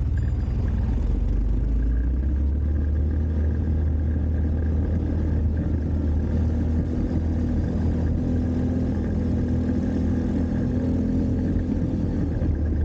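ATV engine running steadily under way: a continuous low drone whose pitch drifts slightly as the throttle changes.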